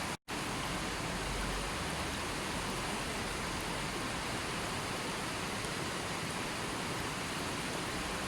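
A steady, even rush of water noise from a nature-sounds track. It drops out completely for a split second near the start, like a loop splice.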